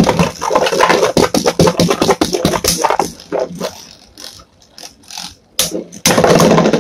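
Two Beyblade Burst spinning tops, Venom Diabolos and Jumpman Joker, clashing in a plastic stadium: rapid clicks and rattles as they strike each other and scrape around the bowl. The clashing thins out in the middle and turns loud and dense again near the end.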